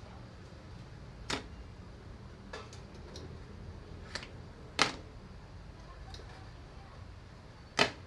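A handful of sharp knocks or clicks at irregular intervals, the loudest near the middle and at the very end, over a steady low hum.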